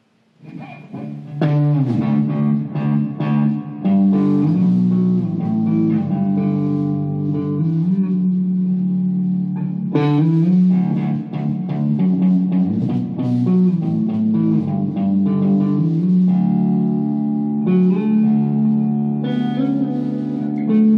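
A band playing an instrumental passage live: electric guitar notes and chords over a low, sustained bass part, starting about half a second in.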